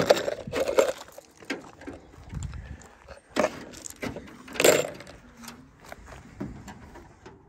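A handful of sharp metallic clinks and knocks from hand tools and loose hardware as a dirt-track race car's body panels are unbolted. The loudest comes about two-thirds of the way through.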